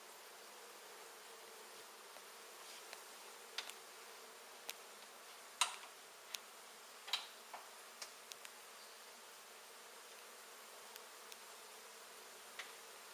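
A honey bee colony buzzing steadily, with scattered sharp clicks and knocks over it; the loudest two come a little past halfway through.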